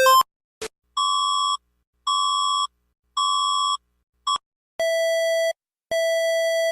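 Emergency alert tones played one after another. A two-tone warble cuts off at the start. Then come three evenly spaced high beeps about a second apart and a clipped fourth, the Philippine alert, and then, from near the end, the Indonesian alert: a lower, buzzier tone repeating about once a second.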